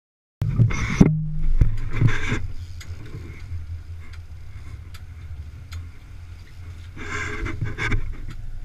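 A sport-fishing boat's engines running with a steady low drone, broken by short bursts of rushing noise about a second in, at two seconds, and near the end, with a few sharp knocks.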